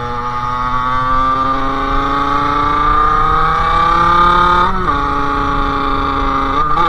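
Sherco SM-R 50's 50cc two-stroke engine through a KRM aftermarket exhaust, pulling under throttle with its pitch slowly climbing. It shifts up about five seconds in and again near the end, the note dropping briefly each time.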